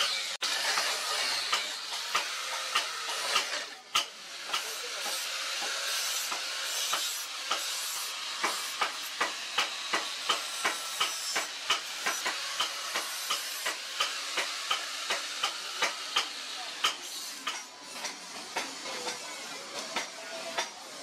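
Handheld angle grinder with an abrasive disc grinding a steel blade cut from a motorcycle brake disc: a steady grinding noise broken by many sharp clicks.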